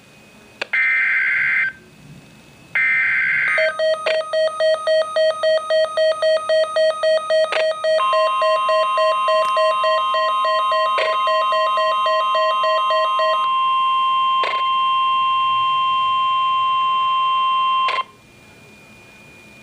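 Emergency Alert System tones: two short screeching bursts of digital header data, then a buzzy beep pulsing about three times a second. About eight seconds in, a steady single warning tone joins it and holds for about ten seconds. The pulsing stops partway through the steady tone.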